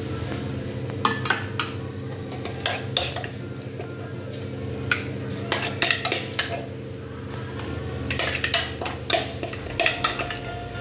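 Silicone spatula scraping and tapping inside a steel mixer jar, with the jar and a plastic measuring cup knocking against a nonstick pot: a run of irregular clinks and scrapes over a steady low hum.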